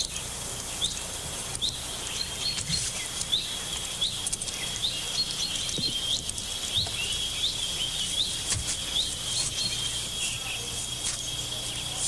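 Field ambience of insects and birds: a steady high-pitched trill with short rising chirps repeating about once a second.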